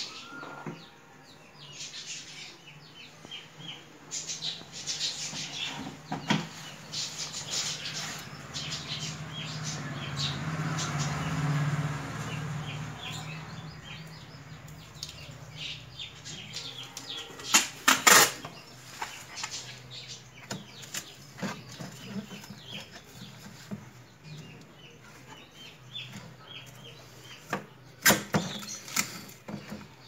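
Hollow plastic TV cabinet being handled, with scattered clicks and two sharp, loud knocks, one a little past the middle and one near the end. Small birds chirp in the background, and a low hum swells and fades around the middle.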